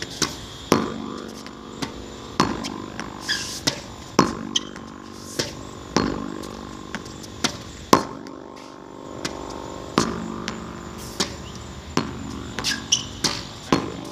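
Tennis ball struck by a racket and rebounding off a practice wall, again and again in a steady rally. The sharp pops often come in close pairs, a hit and the ball off the wall, every second or so.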